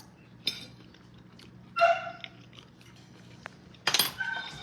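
A dog gives two short whines, begging for food, with a sharp click and a light clink of dishes.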